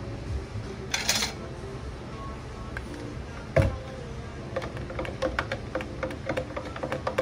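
Ice cubes clinking and rattling against a glass jar of freshly poured tea as the jar is swirled, in quick irregular ticks from about four and a half seconds in. Before that there is a single loud knock of the jar about three and a half seconds in. Soft background music runs underneath, with a brief hiss about a second in.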